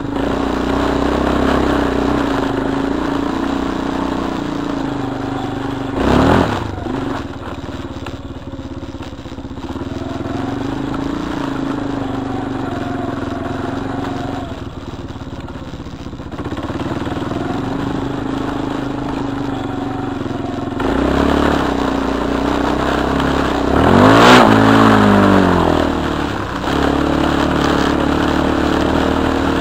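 Single-cylinder four-stroke ATV engine running under the rider as it crosses a sandy trail, its note rising and falling with the throttle. A short loud burst comes about six seconds in, and a louder rev sweeps up and back down near the end.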